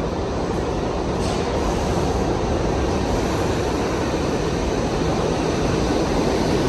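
New York City subway shuttle train running at the platform: a steady rumble of wheels and motors.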